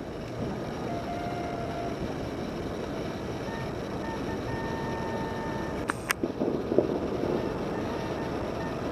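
Distant fireworks show: a steady rumble of far-off bursts, with two sharp cracks about six seconds in followed by a cluster of irregular pops and thumps.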